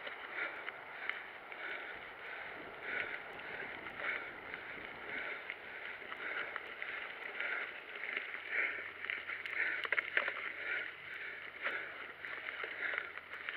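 Mountain bike ridden along a dirt trail: tyre and bike noise with a muffled pulse about every two-thirds of a second and scattered sharp rattling clicks.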